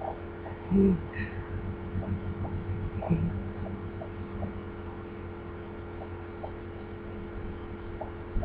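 A steady low hum, with a woman giving two short laughs, about a second in and about three seconds in.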